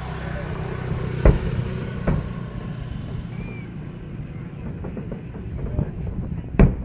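Fireworks shells bursting: sharp bangs about a second in, just after two seconds, and a loudest one near the end, over a low steady rumble.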